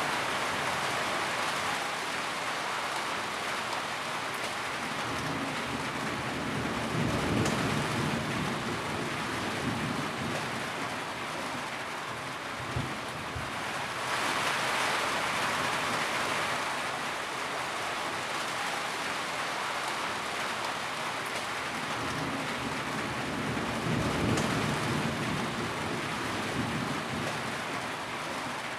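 Steady rain falling, a continuous hiss that grows heavier for a couple of seconds around the middle. Two low rumbles swell up under it, about a quarter of the way in and again near the end.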